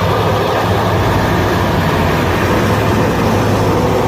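Heavy truck engine running steadily with a constant low hum.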